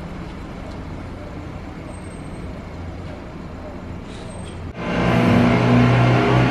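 A car engine idling with a steady low hum; about three-quarters of the way through, the sound cuts abruptly to a much louder engine revved hard and held at high revs.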